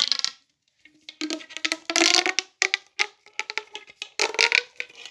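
Small plastic fidget toys being handled: clusters of sharp clicks and rattles, in four or five short bursts.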